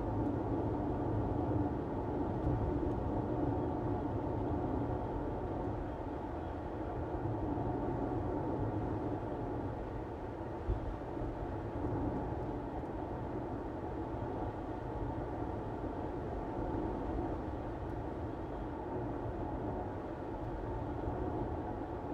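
A car driving at steady speed: even road and tyre noise with a low rumble, and one brief knock about halfway through.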